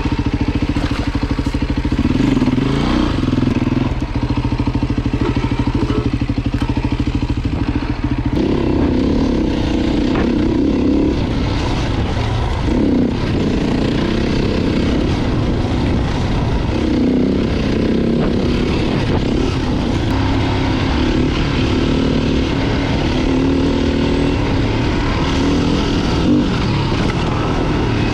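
Beta RR 450 dirt bike's single-cylinder four-stroke engine running at a steady low speed, then, about eight seconds in, going over to rising and falling revs for the rest of the stretch.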